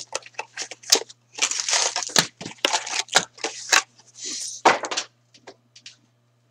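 A sealed hockey trading-card box being torn open and its contents handled: a quick run of crinkling, tearing bursts for about five seconds, then a few light taps.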